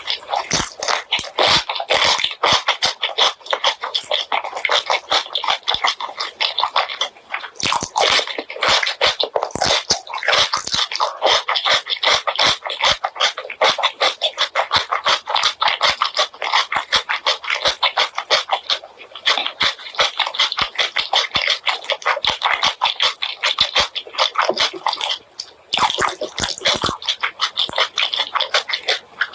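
Close-miked eating sounds of spicy pork leg curry and white rice: wet chewing and lip smacking in a fast, dense run of clicks and smacks, with a couple of brief pauses.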